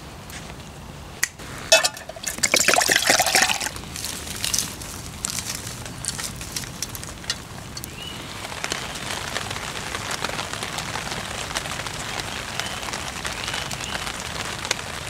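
A few clicks, then liquid poured for about a second and a half, a couple of seconds in. After that comes steady rain, with a few faint bird chirps.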